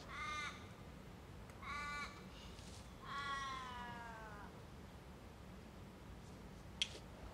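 Crow cawing three times: two short calls, then a longer drawn-out call that falls in pitch.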